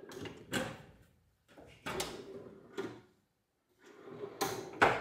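Stainless steel tool cabinet drawer rolling open and shut on its slides three times, each stroke ending in a sharp knock.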